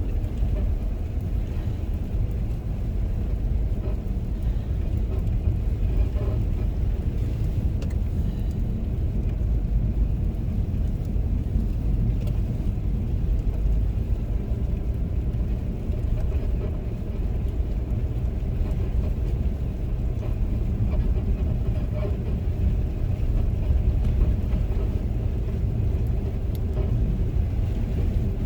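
Steady low rumble of a car driving slowly on a snow-covered road, heard from inside the cabin: tyre and road noise under the engine's hum.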